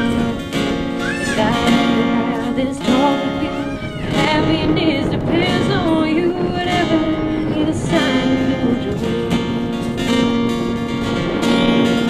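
Acoustic guitar strummed with a woman singing over it, with sliding, held vocal notes.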